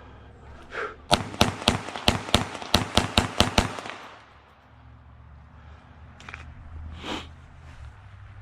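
A rapid string of about ten shots from a Glock 44 .22LR pistol, fired close to four a second and ending suddenly, followed by a couple of fainter sounds.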